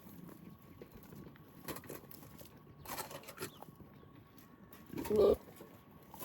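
A goat gives one short, low bleat about five seconds in, with a few faint clicks and knocks before it.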